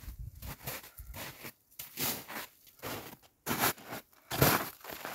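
Footsteps crunching in old spring snow, about two steps a second, getting louder as the walker comes right up to the microphone, with the loudest crunch near the end.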